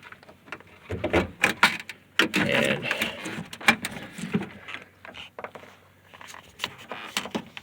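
Flat-blade screwdriver prying at a factory door speaker's plastic mount, with irregular clicks, knocks and scrapes of metal on plastic.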